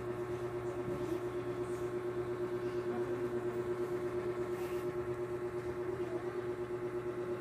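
A steady motor hum at a constant pitch, with a slight regular pulsing.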